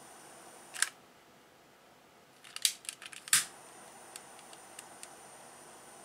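Gas blowtorch hissing steadily while it heats a copper lug terminal on heavy cable. A sharp click comes about a second in, after which the hiss dips briefly. A quick cluster of sharp clicks and taps follows about halfway through, then a few light ticks.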